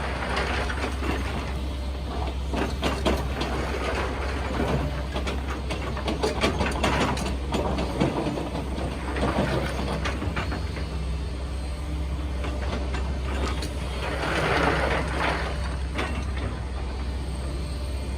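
Hydraulic excavator (backhoe) on demolition work: its diesel engine runs steadily under repeated bouts of crunching, cracking and scraping as debris is crushed and broken, the loudest bout about three quarters of the way through.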